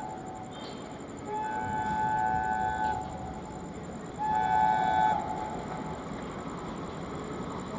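ALCO WDM-3A diesel locomotive's two-note air horn sounding two blasts, one about a second and a half long and a shorter one about four seconds in, over the rumble of the passing train.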